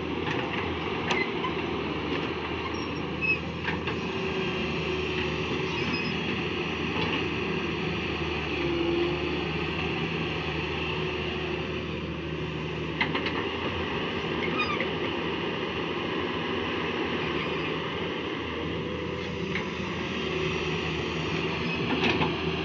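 Hyundai wheeled excavator's diesel engine running steadily as it digs, with a few sharp knocks from the bucket striking soil and stones.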